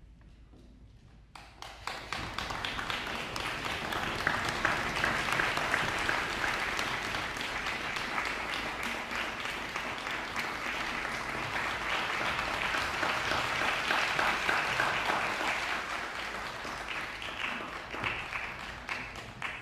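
Audience applauding. The clapping starts about a second and a half in, swells, and dies away near the end.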